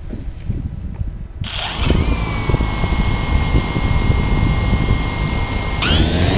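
DJI Phantom quadcopter's motors and propellers starting up: a steady high whine from about a second and a half in, then rising quickly in pitch and getting louder near the end as the drone throttles up to lift off. A few low knocks come before the motors start.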